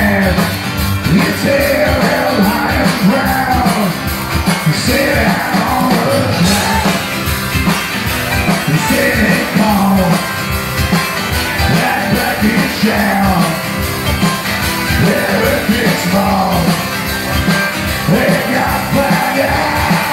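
Live rock band playing through a stage PA: a lead singer over electric guitars and a drum kit with a steady, driving beat.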